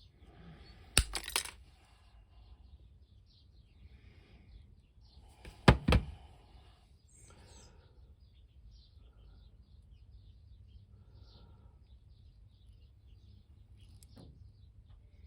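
Two pairs of sharp snaps: one about a second in and one about six seconds in, with quiet handling in between. They are the sound of steel paperclip wire being clipped off with cutters.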